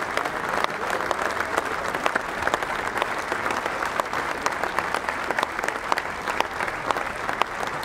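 Stadium crowd applauding steadily, a dense wash of many hands clapping with no let-up.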